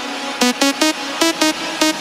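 Electronic dance music: short, pitched synth stabs repeating in a quick rhythm over a steady backing.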